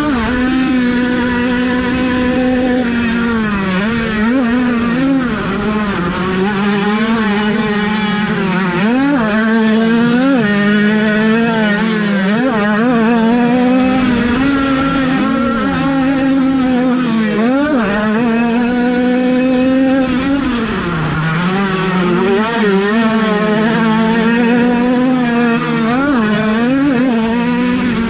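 Several 50cc two-stroke motocross minibikes running at once, their engines revving up and down in repeated pitch swoops as the riders work the throttle, one engine holding a fairly steady note under the others.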